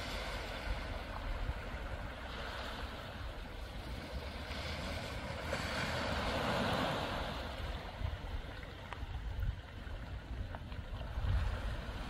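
Sea surf washing against a rocky shore, with one louder wash swelling and fading midway, and wind buffeting the microphone.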